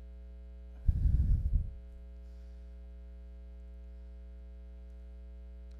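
Steady mains hum, broken about a second in by a loud low rumble lasting just under a second as a small fan next to the pulpit microphone is switched on.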